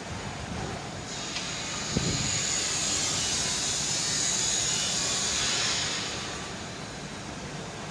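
Molten zinc bath of a hot-dip galvanizing kettle hissing as flux-coated steel pipes in it give off fume. The hiss swells about a second in, holds, and fades away near the end, with a dull thump about two seconds in.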